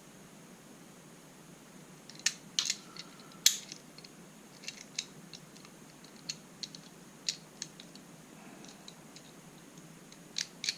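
Small metal puzzle lock being handled: irregular light clicks and clinks of its parts and key, starting about two seconds in, with a few sharper clacks among them.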